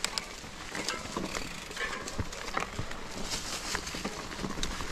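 Mountain bike rolling along a dirt trail: tyres crunching over dirt and leaves, with irregular clicks and rattles from the bike.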